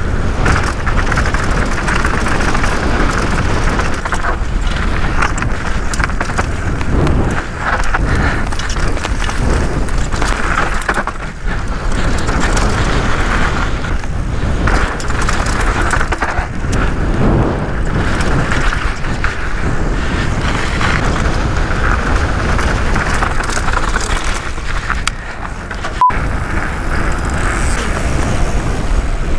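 Downhill mountain bike riding fast down a dry dirt trail: knobby tyres rolling and rattling over the rough ground with steady wind rush on the action camera's microphone. A single sharp click comes near the end.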